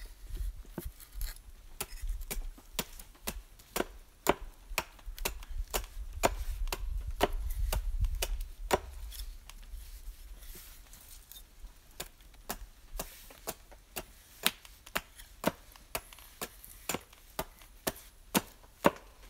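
Small hatchet chopping short, glancing strokes into the end of a debarked wooden pole, cutting chamfers into a table leg. A long run of sharp chops, irregular at first and settling to about two a second in the second half.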